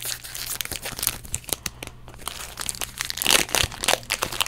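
Foil booster-pack wrapper crinkling as it is handled and torn open, an irregular run of crackles with louder crunches about a second in and again past the three-second mark.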